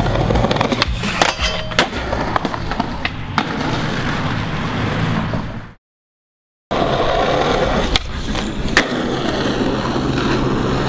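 Skateboard wheels rolling on concrete, with sharp clacks of the board popping and landing. The sound fades out about five seconds in, cuts out for under a second, then the rolling picks up again.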